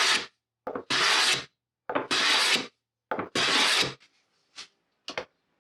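Japanese hand plane pulled across a glued-up curly maple board in the final flattening, taking four long shaving strokes about a second apart, each starting with a brief catch of the blade. A couple of light taps near the end.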